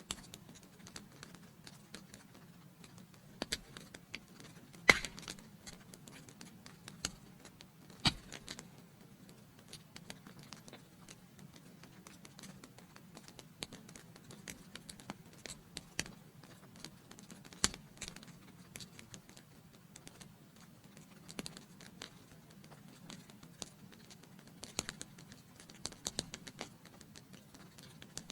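Wood fire burning in a fireplace, crackling with irregular sharp pops over a soft steady hiss; the loudest pop comes about five seconds in, another about eight seconds in.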